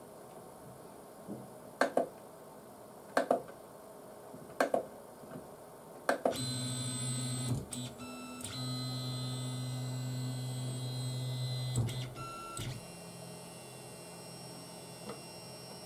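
3D printer stepper motors on A4988 drivers moving the axes. First a few short clicking jerks, then about six seconds of a loud, steady, whining tone during a longer move, which gives way to a fainter tone of a different pitch. This audible stepper whine is typical of A4988 drivers.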